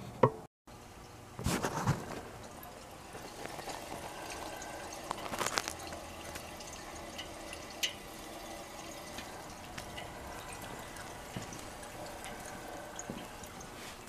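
Sulfur dioxide refrigerant boiling out of the oil in a GE CK26 Monitor Top's compressor dome as the gas is vented through a disposal hose: a faint, steady bubbling with small drips and ticks. A couple of louder knocks sound near the start.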